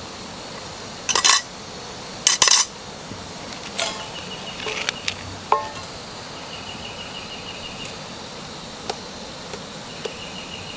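Stainless-steel camp cookware clattering: two sharp clanks of a lid and pot about a second and two and a half seconds in, then lighter clinks and one short metallic ring, and a few faint taps of a utensil in the pot. A high, rapidly pulsing insect buzz comes and goes in three stretches from about the middle on.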